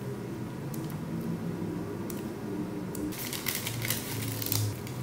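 Scissors cutting through a brown paper bag. A quick run of crisp snips comes about three seconds in, after a quieter stretch with a few light paper sounds.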